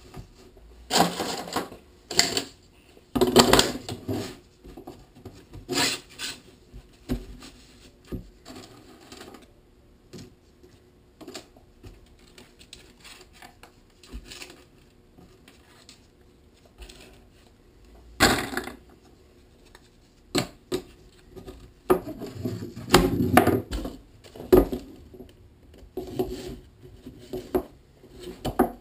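Plastic pipe and a fabric hammock being handled on a wooden workbench: irregular knocks, clatter and rubbing, with several louder clatters.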